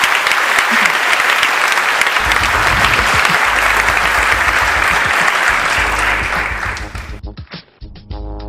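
Audience applauding, with music entering underneath about two seconds in. Near the end the applause cuts off abruptly, leaving the music with a steady beat.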